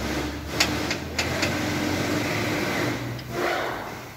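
A metal hand wrench clicking against truck engine fittings: three sharp clicks in the first second and a half, over a steady low mechanical hum.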